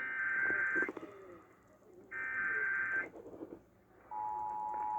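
Emergency Alert System test on the radio: two bursts of the raspy digital header data, each about a second long and a second apart, then about four seconds in the steady two-tone attention signal starts.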